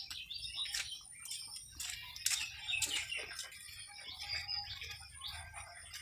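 Small birds chirping in many short, scattered calls.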